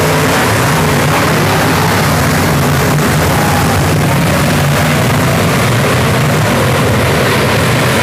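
Race car engines running loud and steady, a constant rumble with faint engine pitches rising and falling as the cars speed up and slow down around the figure-eight track.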